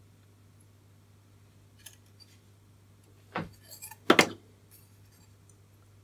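Small metal hand tools handled on a workbench: a few light ticks, then two sharper clicks under a second apart, the second the louder, over a faint steady low hum.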